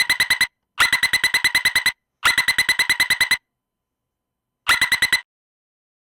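Taipei Metro train warning tone: rapid electronic beeping, about ten pulses a second, in bursts of roughly a second with silent gaps. A burst is ending at the start, two full bursts follow, and a shorter burst comes near the end.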